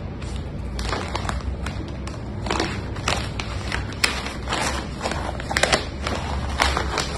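Newspaper rustling and crinkling as a cat treads and paws on it, in irregular sharp crackles.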